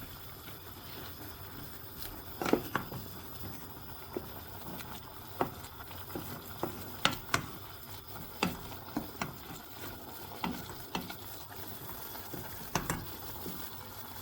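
A spoon stirring wilting spinach in a pot and pushing it down into the water, with irregular clicks and knocks against the pot over a steady hiss from the cooking pot.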